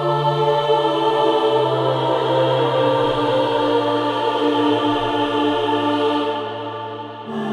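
Sampled all-female choir of altos and sopranos singing slow, sustained chords. The chord changes about a second and a half in, fades near the end, and a new chord enters just before the end.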